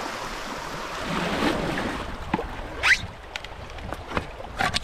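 Shallow creek water rushing past a canoe running a swift. A short rising squeak comes about three seconds in. After it the sound is quieter, with a few light knocks and splashes.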